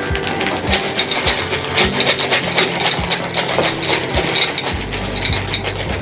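Jellybeans poured into a toy gumball machine, a dense rattling clatter of many small candies hitting the plastic.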